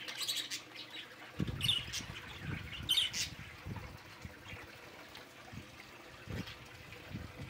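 Caged budgerigars and lovebirds chirping in a few short high calls in the first three seconds, with irregular soft low thumps of fluttering and movement in the cage.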